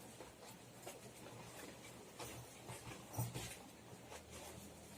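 Faint rustling and small clicks as a badminton racket bag is handled and opened, with a slightly louder knock about three seconds in.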